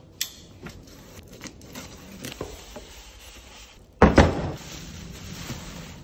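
Electric hoist being unpacked: a cardboard box cut open with a sharp click, then small scrapes and clicks of box handling. About four seconds in, a loud rustling thump as the hoist comes out of the box in its plastic bag, followed by plastic bag crinkling as it is unwrapped.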